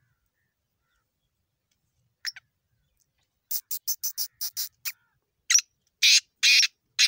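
Black francolin calling: one short note, then a quick run of about eight dry, clicking notes, then four louder, longer, harsh grating notes near the end.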